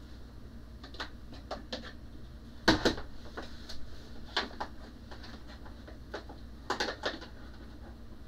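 Hard plastic knocks and clicks of a component-drawer cabinet being offered up and hung on pegboard hooks: scattered light taps, one louder knock a third of the way in, and two close knocks near the end.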